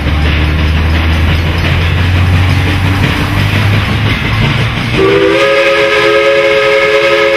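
CNJ 113 steam locomotive approaching with a steady low rumble and hiss. About five seconds in, its chime steam whistle starts a long blast of several notes sounding together, held to the end, as it nears the grade crossing.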